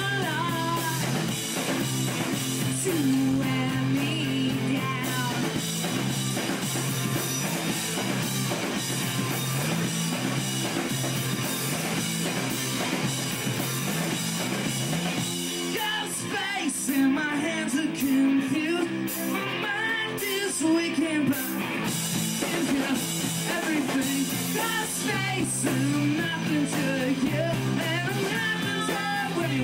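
Rock band playing live, with electric guitars, bass guitar and a drum kit, and a singing voice over them.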